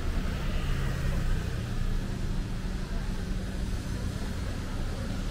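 A motor engine running steadily with a low, even drone, over general outdoor street noise.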